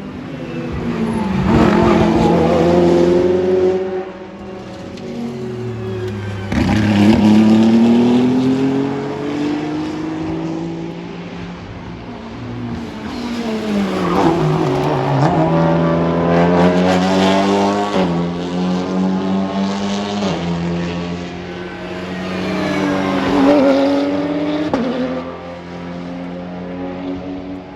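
Race cars at racing speed passing one after another, each engine note rising as it nears and falling away as it goes by, with sudden jumps in pitch as the drivers shift gear.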